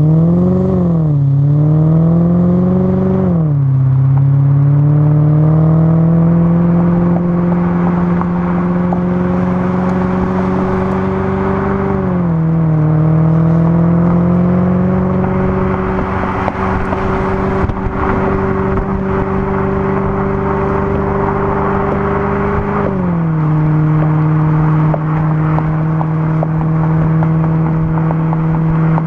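Maserati GranTurismo 4.2-litre V8 through a SuperSprint exhaust, heard at the tailpipe while driving: the note climbs and steps down at upshifts about a second and three and a half seconds in, then holds a steady cruise with further drops in pitch at about twelve and twenty-three seconds. Wind rushes over the microphone throughout.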